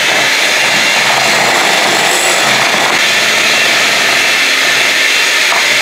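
Electric mixer running steadily, beating an egg into creamed butter and sugar for muffin batter.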